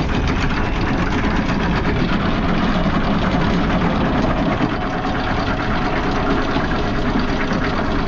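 Catamaran's engine running steadily in reverse, with a faint steady hum through the noise: the boat is being backed down while anchoring.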